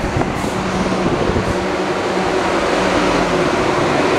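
Siemens Desiro electric multiple unit (South Western Railway Class 444/450) moving along a station platform: steady running noise of the coaches going by, with a low, even electrical hum.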